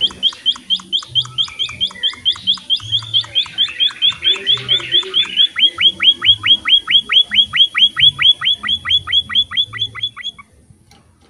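A songbird calling in a rapid, even series of loud notes, about six a second, each sweeping down in pitch. The series stops abruptly near the end.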